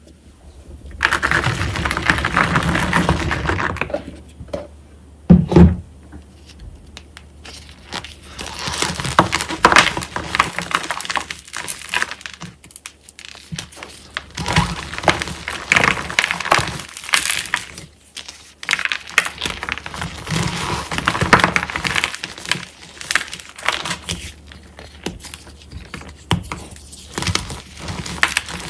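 Reformed gym chalk blocks being crushed and crumbled: a dense, uneven run of crunching and crackling, with two loud thuds about five seconds in. The chalk was set without any additive, so the blocks are hard and crunchy.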